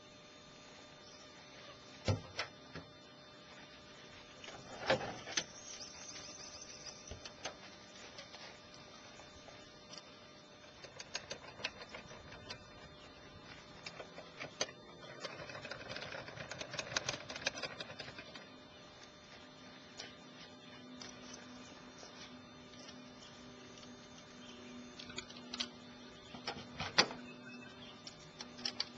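Scattered knocks, clicks and clatter of the tray-top camper's metal doors, panels and latches being handled, sped up to double speed. About halfway through there is a longer stretch of rustling and clattering, and a faint steady hum sets in in the second half.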